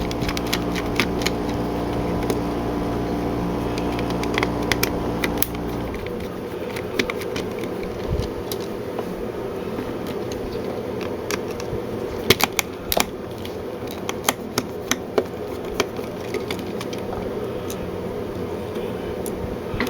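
Scattered small clicks and taps of a screwdriver, tiny screws and plastic parts as the screws come out of a Nintendo 64 controller's analog thumbstick module. A steady mechanical hum underneath stops about six seconds in.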